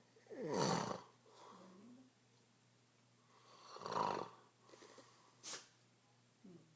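An elderly man snoring: two loud rasping snores about three seconds apart, each followed by a softer breath, and a brief sharp noise near the end.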